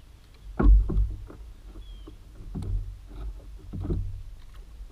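Handling noise in a plastic fishing kayak: a series of irregular knocks and bumps, the loudest about half a second in, while a small crappie is unhooked and held out for release.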